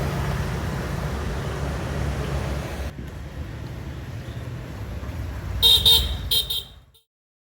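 Steady street traffic rumble, then a quick run of short vehicle horn toots near the end before the sound cuts off to silence.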